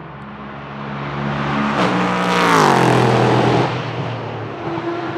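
An LMP3 prototype's Nissan VK56 V8 passing at speed. The engine note swells, its pitch falls as the car goes by about two and a half seconds in, and it drops away sharply soon after. A steadier engine note from another car is heard fainter underneath.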